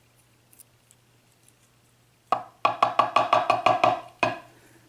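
A quick run of about a dozen sharp, ringing taps on a Yale mortice lock cylinder, lasting about two seconds, as it is tapped to work the remaining top pins and springs out of their chambers. A few faint clicks come before.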